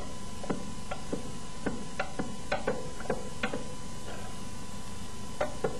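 Chef's knife chopping ham on a cutting board: short, uneven taps of the blade against the board, about two a second, with a pause of about a second and a half before two last taps near the end.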